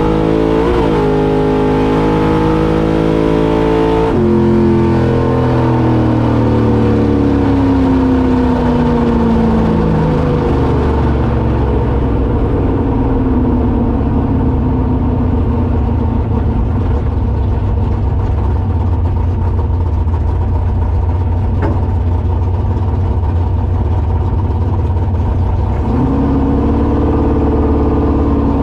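Small-block Ford V8 in a 1983 Ford Ranger drag truck, heard from inside the cab: the engine runs under throttle with its note wavering for the first four seconds, then the throttle is cut sharply and the pitch falls away over several seconds as the truck slows. It settles into a steady low run, then picks up in pitch near the end.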